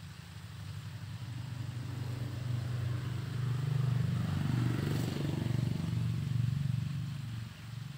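A motorcycle engine passing by: a low running hum that grows louder over the first few seconds, peaks around the middle and fades away near the end.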